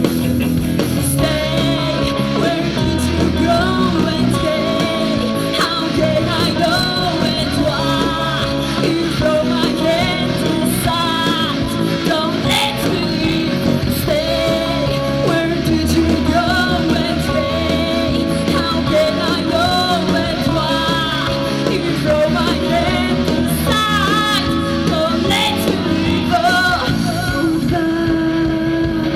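Rock song played by a band: a singer's voice over electric guitars and bass guitar, running steadily throughout.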